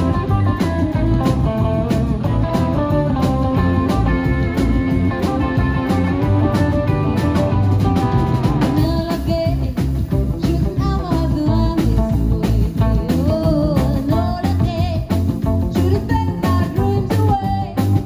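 A rockabilly band plays live on electric guitars, upright double bass and drum kit. A singing voice comes in about halfway.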